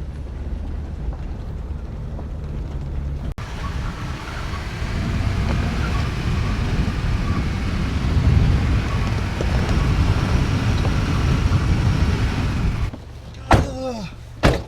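Off-road vehicle driving slowly on a dirt trail: steady low engine hum, then rougher rumbling from the tyres and body over the uneven ground. Near the end it goes quieter, with a short falling squeak and a sharp click.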